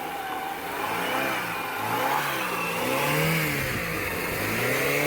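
Car engine running and being revved up and down several times, just after it finally started following a no-start.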